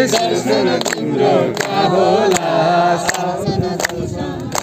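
A group of men and women singing a Hindu devotional bhajan together, keeping time with sharp handclaps about every three-quarters of a second. The singing thins out for the last second or so while the clapping goes on.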